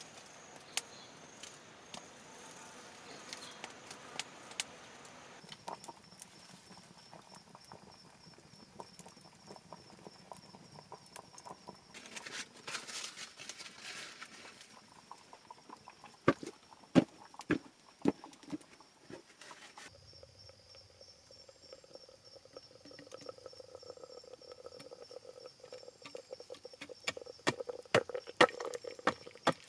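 Wood fire crackling with scattered pops, and a run of loud wooden knocks about halfway through as sticks are pushed into the fire. Near the end come more knocks as a bamboo cooking tube is tipped and tapped out over a split bamboo trough, with a steady high insect whine in the background.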